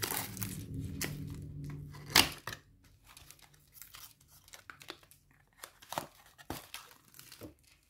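A small sealed cardboard box being torn open and handled, with paper and plastic wrap crinkling. There is one sharp snap about two seconds in, then scattered light rustles and clicks as the flaps are folded back and the jar is slid out.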